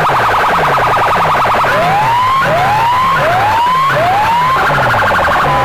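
Siren-style electronic effects played very loud through large DJ loudspeaker stacks: a rapid warbling tone, then four rising whoops about three-quarters of a second apart, over a repeating falling bass beat.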